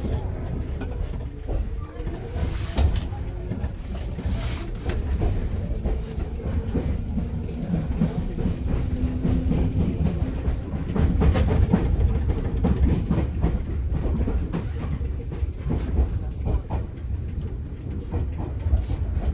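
JR 205 series electric train running, heard from inside the car above its line breaker: a steady low rumble of wheels on rail with repeated clicks and knocks from the track.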